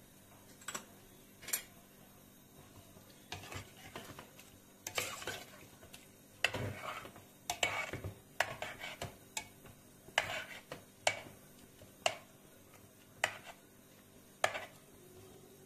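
A metal spoon stirring broccoli and carrot in water in a stainless steel pot: irregular scraping swishes and sharp clinks of the spoon against the pot, the clinks coming singly about once a second toward the end.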